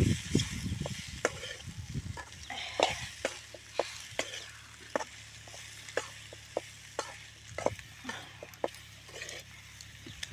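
A metal spoon scrapes and clicks against a metal kadai as boti (goat tripe) fry is stirred over a wood fire, about two strokes a second, over a light sizzle of frying. A few low thumps come in the first two seconds.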